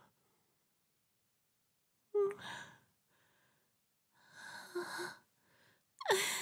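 A woman's breathing and soft voice sounds: a short voiced gasp about two seconds in, a longer breathy sigh around the middle, and a hum that falls in pitch near the end.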